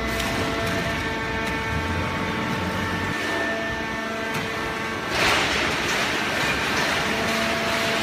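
Automatic horizontal baler's hydraulic power unit running with a steady, many-toned hum and faint clicks. About five seconds in, a louder hissing rush starts and carries on over the hum.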